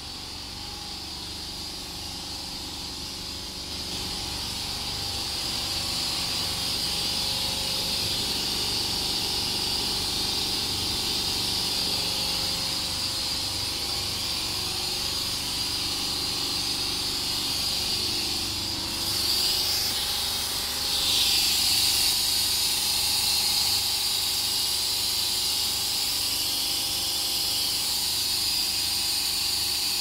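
Steady hiss of compressed air leaking from the batching plant's pneumatic system, swelling louder about two-thirds of the way through. The leak is suspected to be at the air cylinder (jack).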